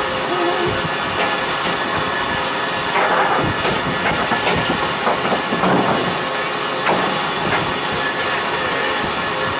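Steam locomotive hissing steam steadily, with a few louder swells of noise about three, six and seven seconds in.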